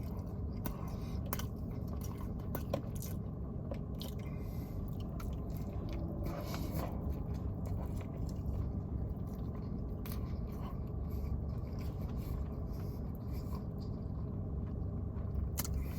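A person chewing and biting food close to the microphone, with many small wet mouth clicks and crunches scattered throughout.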